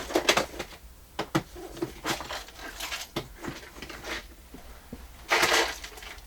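Hands rummaging through craft supplies: scattered clicks, taps and rustles of small items and containers being moved, with a louder rustle or scrape lasting about half a second near the end.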